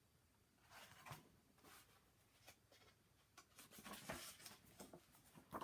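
Faint rustling and soft scraping of paper, in irregular bursts that start about a second in: the pages of a picture book being handled and turned.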